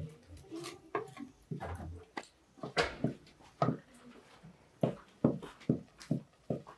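Wooden stirring stick working thick mashed beans in a pot: a run of short knocks and scrapes, irregular at first, then steadier at about two to three strokes a second.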